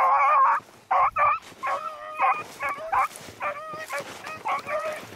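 Beagle hounds baying on a rabbit's trail: one long bay, then a run of short chop barks about two a second, growing somewhat fainter toward the end.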